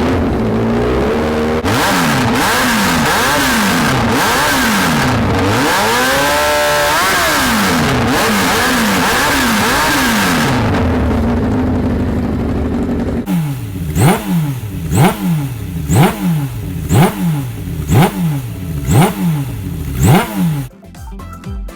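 Suzuki GSX-R 750 air/oil-cooled inline-four revving, its pitch sweeping up and down repeatedly. From about thirteen seconds in it gives sharp throttle blips about once a second, each rising fast and falling back.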